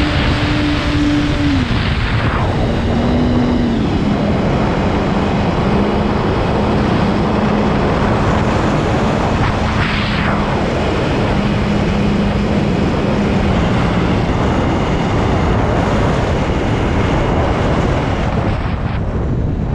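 X-UAV Clouds fixed-wing FPV drone in flight: loud wind rush on the onboard GoPro's microphone over a steady motor-and-propeller hum whose pitch steps down a few times as the throttle is eased back.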